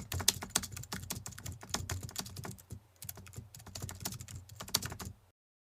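Broken glass: shards clinking and crunching in a rapid run of sharp clicks, in two bursts with a brief lull about three seconds in, cutting off abruptly.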